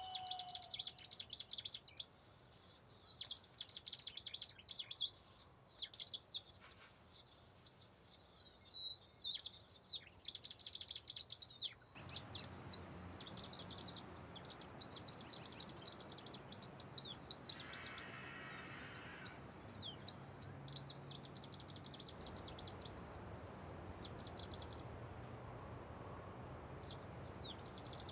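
Many wooden bird whistles chirping and warbling together in a dense imitation of a dawn chorus. About twelve seconds in, the calls thin out over a steady background hiss, and they pause briefly near the end.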